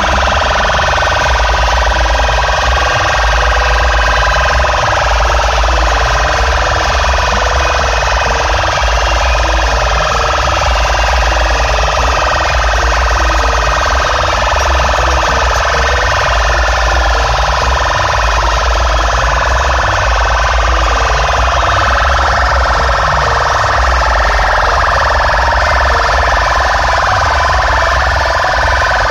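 Large DJ sound system played at full volume: a wavering siren-like wail over a heavy pulsing bass, unbroken and loud.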